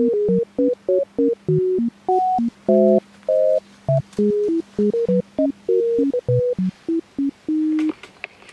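Background music: a quick melody of short, plain electronic tones hopping up and down in pitch over a faint held low note.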